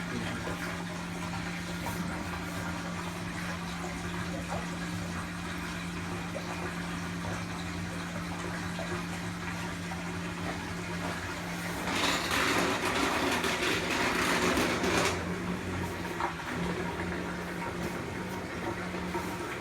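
LG WT7100CW washer's drain pump running with a steady hum, with a rush of water for about three seconds midway. The owner suspects a bad pump.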